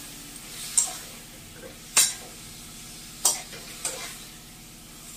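Flat metal spatula stirring potatoes and bottle-gourd stalks in a metal kadhai, with four sharp scrapes and knocks of the spatula against the pan, the loudest about two seconds in. A low sizzle of the frying vegetables runs underneath.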